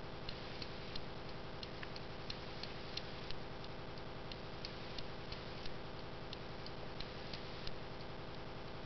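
Franz Hermle portal clock's open brass movement ticking steadily, about three ticks a second, some ticks louder than others.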